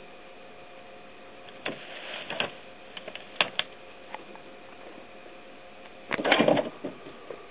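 A cat moving through a pile of discarded plastic bags, bottles and cans: scattered crinkles and light clinks, then a louder burst of rattling knocks about six seconds in.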